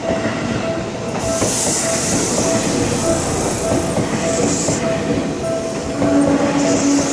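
Seibu Tamako Line electric train passing over a level crossing, its wheels rumbling and clacking on the rails. The crossing's warning bell keeps dinging in an even repeat over it, and a high hiss rises for a few seconds from about a second in.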